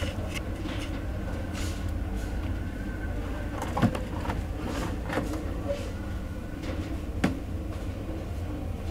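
Scattered light clicks and knocks of parts being handled during reassembly of an LED TV, over a steady low hum.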